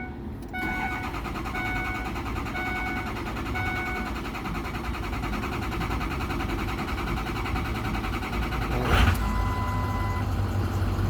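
Ford 6.0 Power Stroke diesel in a 2006 F350 being cranked by the starter for about eight seconds before it fires, with a dash warning chime dinging about once a second at first. The engine catches with a burst about nine seconds in and settles into a low rumble. It is slow to start, which the mechanic calls taking too long.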